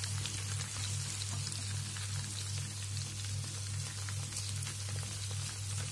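Chicken pieces frying in hot ghee in an iron kadhai, sizzling and crackling steadily, over a steady low hum.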